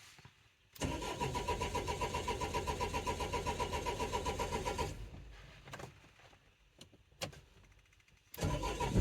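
Starter motor cranking the Renault Trafic's 1.9 dCi four-cylinder diesel with a rhythmic chug of about five beats a second, for about four seconds, without the engine catching. A few light clicks follow, and cranking starts again near the end. It is a crank no-start, with the engine-speed synchronisation not picking up, which the mechanic takes for a problem with the engine's timing.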